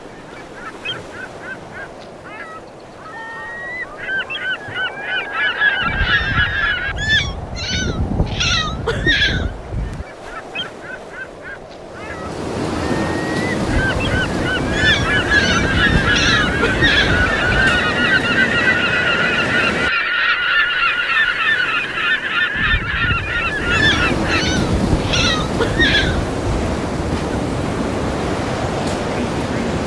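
A flock of birds calling, many short repeated calls overlapping in two long bouts, over a loud rushing sound of surf.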